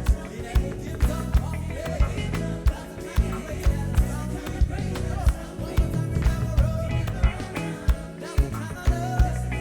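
A band playing gospel reggae: bass, guitar and drums with a steady beat of about two kick-drum hits a second.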